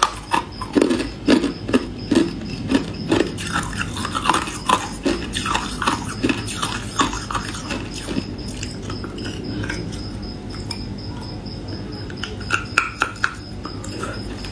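Thin slab of frosted ice being bitten and chewed: quick crisp crunches, dense for the first several seconds, thinning out, then another burst of crunches near the end.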